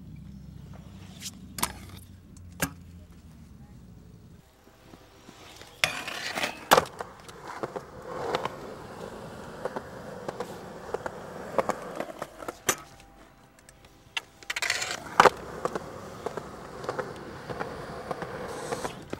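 Pro scooter wheels rolling on skatepark concrete, with sharp clacks and a few loud smacks as the scooter lands and hits the ground. A low steady hum runs through the first few seconds.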